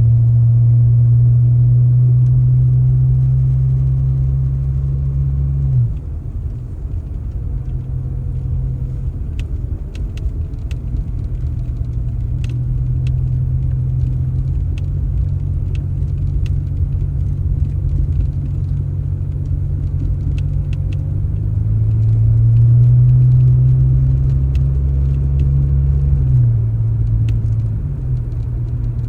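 A vehicle engine running with a deep drone that eases off about six seconds in, builds up again around 22 seconds and drops back near the end, with scattered light clicks and rattles.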